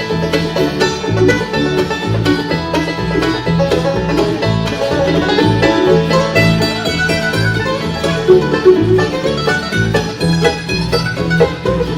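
String band playing an instrumental break: fast plucked-string picking over a bass line that alternates on a steady beat.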